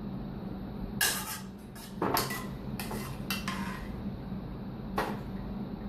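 Kitchen clatter: dishes and utensils knocked and handled, in short clinks and scrapes about one, two, three and five seconds in, over a steady low hum.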